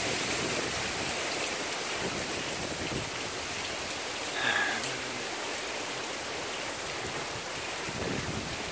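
Steady hiss of heavy hurricane rain and wind, with a brief, louder, higher sound about halfway through.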